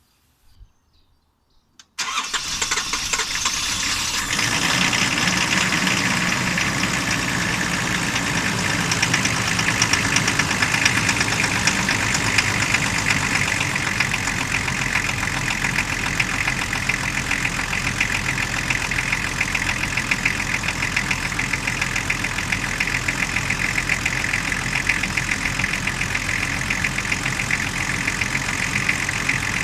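Nissan RD28ETi 2.8-litre straight-six turbodiesel starting about two seconds in, then idling with a ringing, metallic knock. The owner says this knock comes after every start, lasts 15–20 seconds and then disappears.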